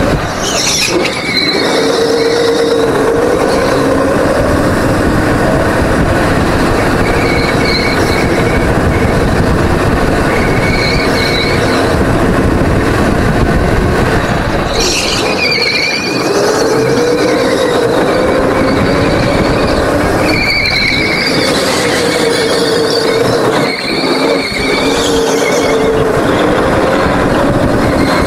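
Go-kart engine heard from the driver's helmet, running hard and rising and falling in pitch as the kart lifts off and accelerates through the corners. Short high tyre squeals come in the turns.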